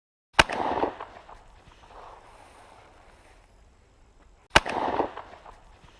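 Two shotgun shots about four seconds apart. Each is a sharp crack followed by a rolling echo that dies away over a couple of seconds.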